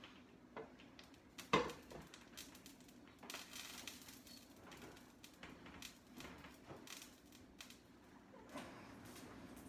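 Handling clatter from a cooking pot being lifted and set down on a smooth-top electric stove: one sharp knock about a second and a half in, then smaller knocks and scrapes.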